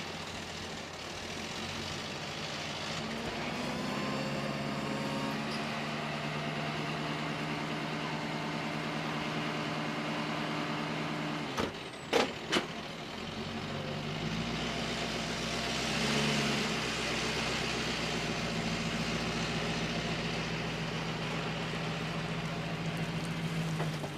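Tow truck's engine and winch running steadily under load as it hauls a pickup truck up out of the river, the drone shifting in pitch a few times. Three sharp knocks just before halfway, and a brief swell of hiss later on.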